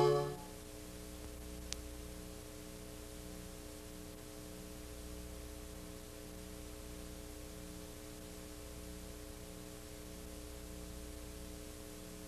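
The tail of closing music dies away in the first half-second. What remains is a faint, steady electrical hum with hiss, a recording's noise floor, broken by one tiny click just under two seconds in.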